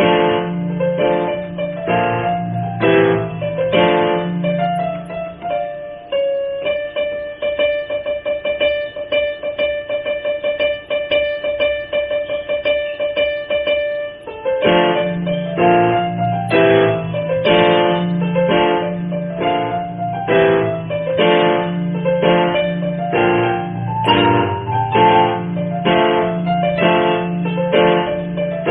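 Background keyboard music with a bouncy repeated-note rhythm over a bass line. For several seconds about a quarter of the way in, the bass drops out and high notes are held, then the beat comes back.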